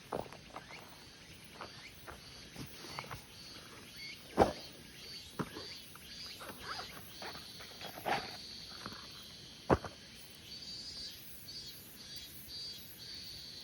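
Short high chirps repeating about three times a second, a calling animal, with sharp clicks and snaps scattered through, the loudest two about four and a half and nearly ten seconds in.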